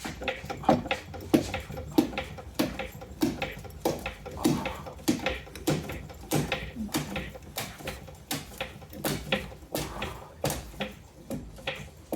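Irregular run of sharp metallic clicks and knocks, a few a second, from tools being worked during a tire change.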